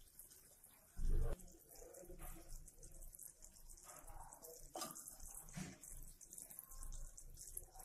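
A dull knock about a second in, then faint swishing and splashing as fingers work in a glass bowl of water, testing a drop of sugar syrup for one-string consistency.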